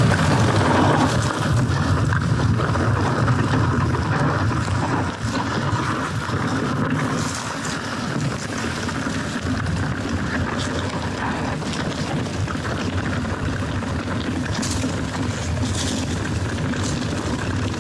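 Wind buffeting a helmet or chest camera's microphone while a mountain bike rolls along a dirt singletrack, a steady low rushing with tyre and trail noise, with a few brief high rattles from the bike along the way.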